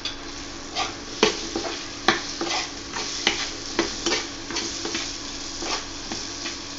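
Boiled potato pieces frying in hot mustard oil in a metal kadhai, stirred with a metal spoon: a steady sizzle with sharp scrapes and clinks of the spoon against the pan about every half second.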